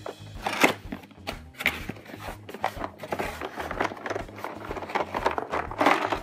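Cardboard Play-Doh set box being handled and opened: irregular scraping, tapping and rustling of the cardboard and its flaps.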